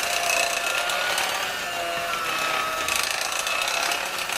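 1970s electric hand mixer running steadily, a motor whine whose pitch wavers slightly as the beaters work through thick cake batter in a ceramic bowl.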